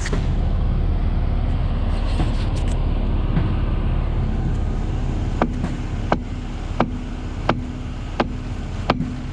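Excavator's diesel engine running steadily. About five seconds in, a sharp ticking starts and repeats evenly, roughly three ticks every two seconds.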